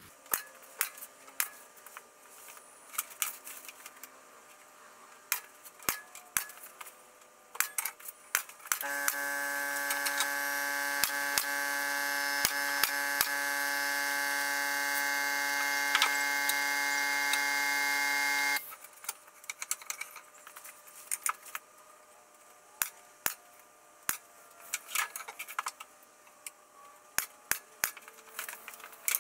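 Pneumatic nail gun shots and knocks of timber being fitted. An air compressor runs as a steady tone for about ten seconds in the middle, growing slightly louder as it builds pressure, then cuts off suddenly.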